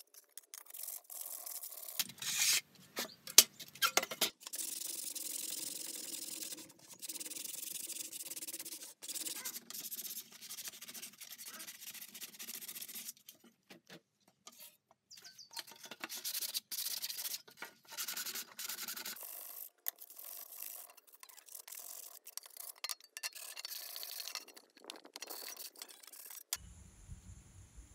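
Sandpaper rubbed by hand over the rusted sheet metal of an old tin money box, scouring off the rust. The strokes come in bursts with short pauses and stop shortly before the end.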